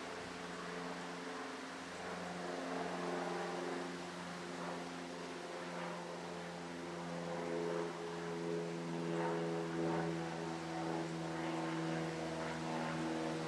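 E57 electric air-raid siren's rotor running, a steady low hum with several overtones whose pitches shift slightly over time.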